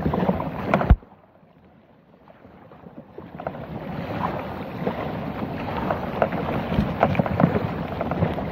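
Pickerelweed stems and leaves brushing and scraping along a plastic kayak hull and over the bow camera as the kayak pushes through dense marsh growth, a crackly rustle full of small clicks. A sharp knock comes about a second in, then it goes quiet for about two seconds before the rustling builds again.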